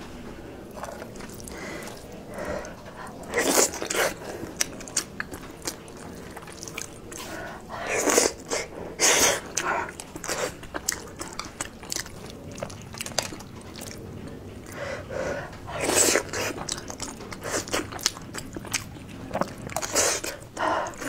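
Close-miked eating sounds: spoonfuls of rice porridge taken into the mouth and chewed, coming in loud short bursts every few seconds.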